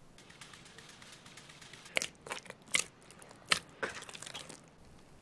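Wet flour dough being mixed by hand in a bowl: soft crackling, with five or six sharp sticky clicks about two to four seconds in.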